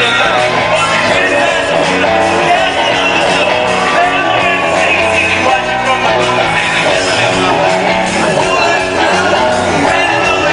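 Live rock band playing at full volume: electric guitars, bass and drums, with a singer's vocals on top, heard as an arena performance.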